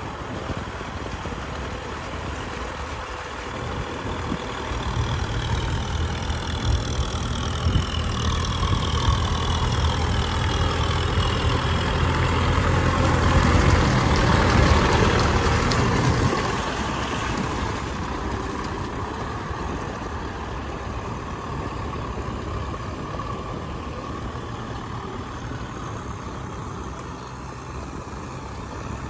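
Kubota M6040SU tractor's four-cylinder diesel engine running as it drags a levelling board through wet paddy mud, growing louder as it passes close by about halfway through, then fading as it moves away.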